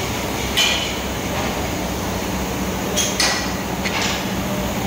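Steady mechanical hum with a low drone, broken by a few short metallic clinks.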